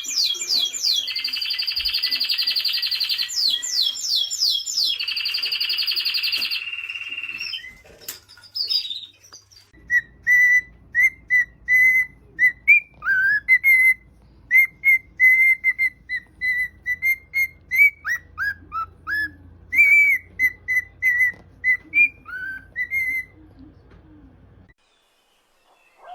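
High-pitched, birdlike whistling and chirping. It opens with a long steady whistle broken by quick falling trills. After a short break come short repeated chirps, about two a second, over a low hum that stops near the end.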